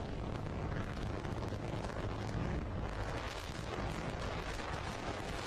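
Falcon 9 first stage's single Merlin 1D engine firing its landing burn: a steady, rough rumble full of crackle.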